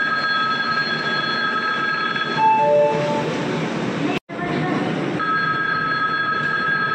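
A steady high two-note warning tone held for about two and a half seconds, then a brief, louder, lower tone, over the low rumble of the train and platform, as the express pulls out. After a break about four seconds in, the high two-note tone sounds again.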